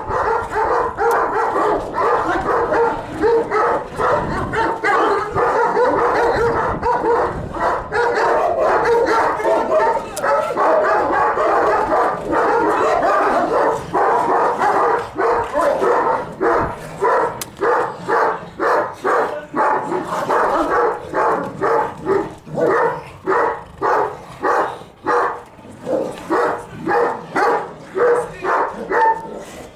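Kurdish shepherd dogs barking in a fight: a dense, unbroken tangle of barks for about the first half, then a steady run of separate barks at about two a second.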